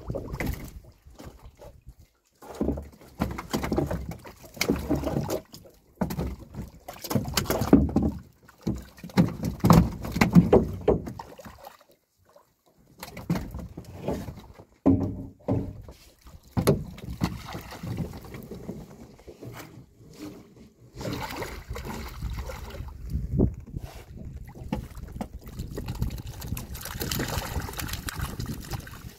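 Irregular splashing and sloshing of water with knocks and rustles of wet netting as a fyke net holding fish is worked at the side of a small boat, in uneven bursts with short pauses between.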